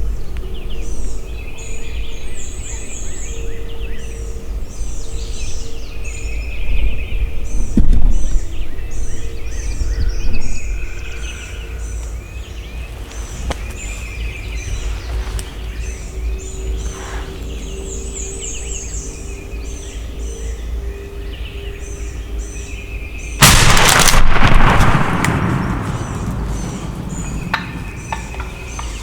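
Songbirds chirp and sing in a dawn chorus. About three-quarters of the way through, a single loud shotgun shot goes off, and its report rolls away over a few seconds.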